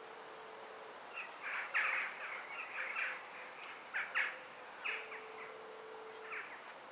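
A small bird calling: a run of short chirps from about a second in, dying away near the end.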